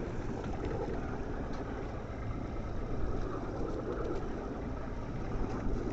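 Tiller-steered outboard motor running steadily at trolling speed, a low even hum.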